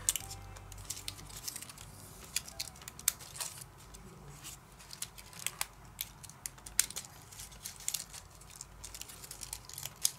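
Stiff white paper pieces of a pop-up paper egg rustling and clicking as they are slotted together by hand, with many short, crisp ticks at irregular intervals.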